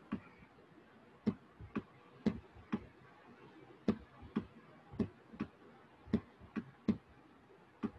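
A dozen or so sharp clicks of handwriting input on a computer, mostly in pairs about half a second apart, each pair a press and a release for one pen stroke.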